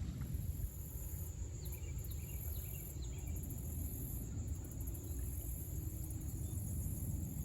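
Insects shrilling high in pulses that switch on and off every second or so, over a steady low wind rumble, with a few faint short chirps in the first half.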